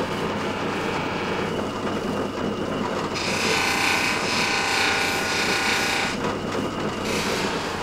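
Polishing bench (Pliestbock) running with a steady hum while a knife blade is held against its cloth buffing wheel. A louder, higher hiss of the blade on the wheel comes in about three seconds in, lasts about three seconds, and returns briefly near the end.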